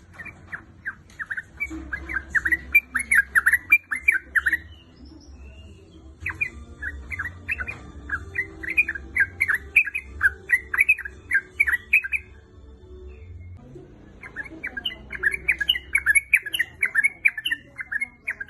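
Yellow-vented bulbul (trucukan) chattering in three bouts of quick, repeated notes, each lasting several seconds with short pauses between. This is a female calling to a male.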